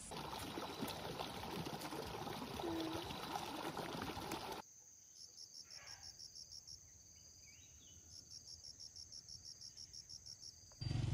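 A rushing outdoor noise with scattered crackles, then, about four and a half seconds in, crickets or similar insects: a steady high whine with two runs of rapid high-pitched pulses, about seven or eight a second.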